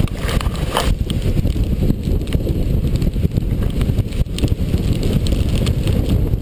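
Hurricane-force wind buffeting the microphone: a loud, gusting low rumble, with a few scattered sharp ticks.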